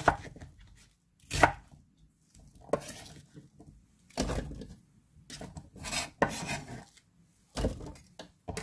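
A kitchen knife chopping a halved onion on a wooden cutting board: separate, irregular knocks, roughly one every second or so. Later the knocks and clatter come from onion pieces being gathered and dropped into a plastic blender jar.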